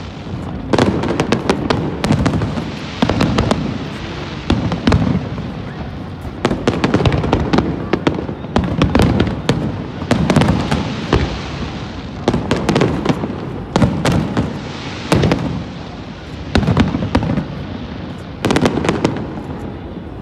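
A New Year aerial fireworks display: shells bursting in a rapid, uneven run of bangs and crackles, bunched in clusters every second or two over a low rumble.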